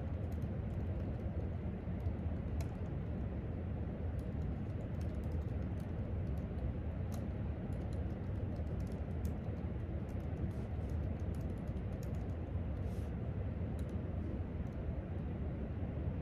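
Irregular, light typing on a laptop keyboard, heard over a steady low background rumble.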